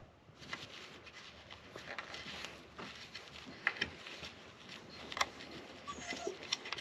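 Quiet rubbing and scattered small clicks and taps from cleaning and handling an e-bike battery connector.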